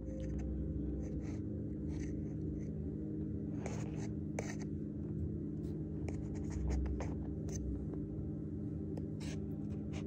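Metal spoon scraping and stirring through loose cornstarch powder in a tub, making a run of short, irregular scratchy scrapes. A steady low hum sits underneath.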